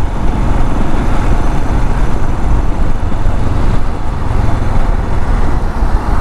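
Royal Enfield Himalayan BS6's 411 cc single-cylinder engine running steadily while riding, with road noise, heard as a dense low rumble.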